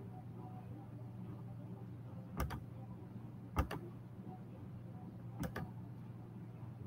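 Three sharp clicks, each a quick double click, spaced a second or two apart, over a steady low hum.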